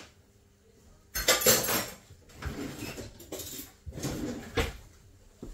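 Metal spoon scraping and stirring through crumbly fruit-cake mixture and raw eggs in a plastic mixing bowl, in three bursts, the first the loudest, with a short click near the end.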